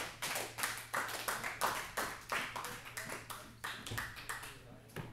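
Hand clapping in a steady rhythm, about three claps a second, thinning out near the end.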